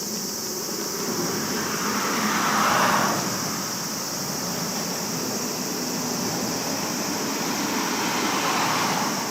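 Road traffic: two vehicles pass, each swelling and fading, one about two to three seconds in and another near the end, over a steady high hiss.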